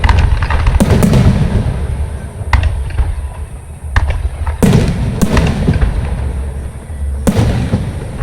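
Fireworks going off: a series of loud bangs a second or more apart, each trailing off into rumble and crackle, with the biggest about a second in, midway and near the end.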